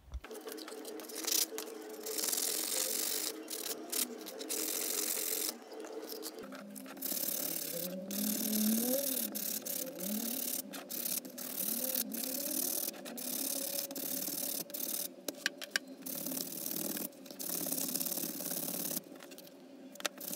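Sandpaper rubbed by hand on a peroba rosa wooden knife-handle scale: a rasping hiss in irregular back-and-forth strokes with short pauses.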